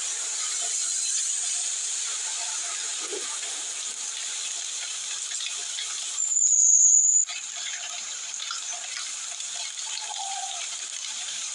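Steady hiss of rain, broken about six seconds in by a loud, high-pitched squeal that lasts about a second.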